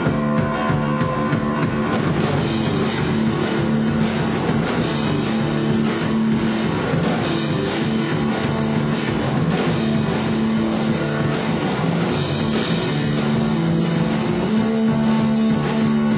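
Live rock band playing with drum kit and guitar over a held low droning note.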